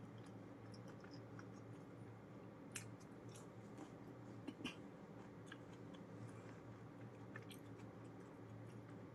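Quiet chewing of food, with faint scattered clicks and wet mouth sounds over a steady low hum.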